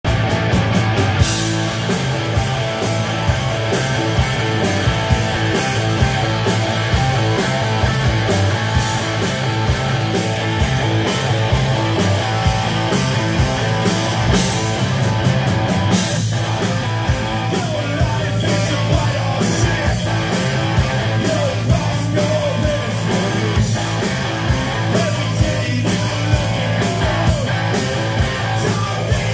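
Rock band playing live: electric guitar, bass and drums at full volume, with drum hits in a steady beat.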